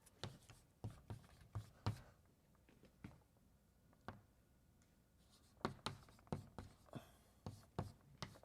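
Chalk tapping and scratching on a blackboard as a formula is written: quick clusters of short taps at the start and again in the second half, with a sparse pause between.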